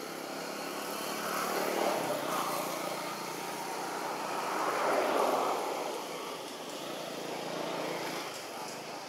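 Distant engine noise that swells and fades twice, loudest about five seconds in.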